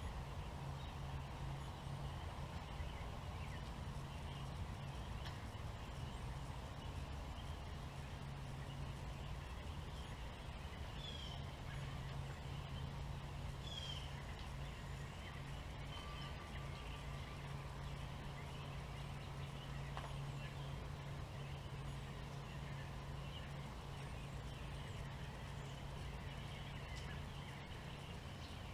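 A flock of American robins calling: scattered short, high chirps, with two clearer downward-sliding notes about a third and halfway through. A steady low hum runs underneath.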